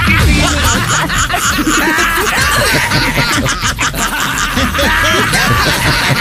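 Several people snickering and chuckling over a background music bed.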